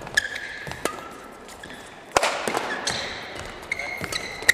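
Badminton doubles rally: rackets strike the shuttlecock about five times, the hardest hit about two seconds in. Short high squeaks of shoes on the court floor come between the hits.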